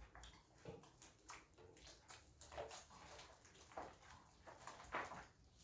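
Faint, irregular soft squishing and sticky clicks of homemade slime being pressed and pulled by hands.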